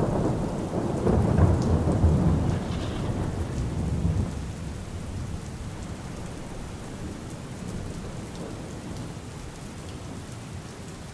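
A rumble of thunder over steady rain. The thunder is loudest for the first four seconds or so, then dies away, leaving the rain.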